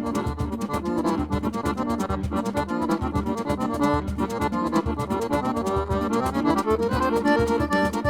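Accordion playing a fast instrumental tune, a quick run of notes over a steady low beat.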